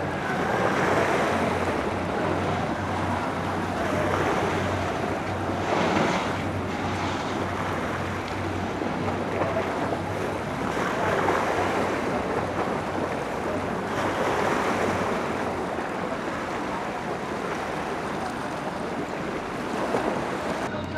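Small passenger ferry launch's engine idling alongside the quay with a steady low hum, under water noise and wind gusting on the microphone that swells and fades every few seconds.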